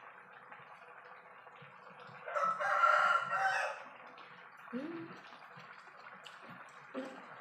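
A rooster crowing once, about two seconds in, lasting about a second and a half.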